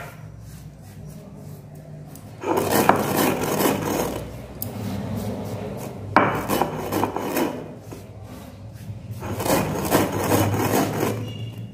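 Stone roller rubbed back and forth on a flat stone grinding slab (shil-nora), crushing soaked atap rice. There are three spells of gritty rubbing strokes, beginning about two seconds in.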